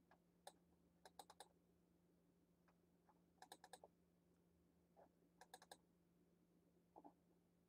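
Near silence with faint clicks at a computer, single or in quick runs of three or four, as Street View is stepped along a road. A faint steady hum lies underneath.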